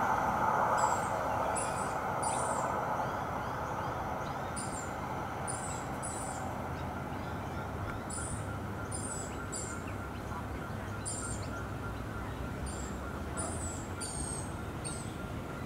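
Small birds chirping over and over in short, high, quick calls, several a second at times. Under them runs a low, steady rumble of distant traffic, and a passing tram fades away over the first few seconds.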